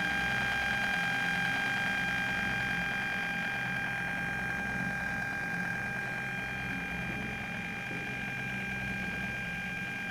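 Two small full-range loudspeakers, driven by a Bluetooth audio module and an amplifier board sharing one 12 V supply, give out interference noise at zero volume: a steady high whine over a hiss, with an uneven low buzz beneath. The noise comes from the shared power supply.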